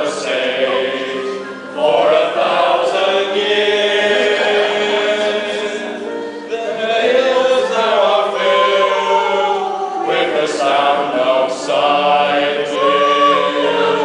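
A small group of men singing together in chorus.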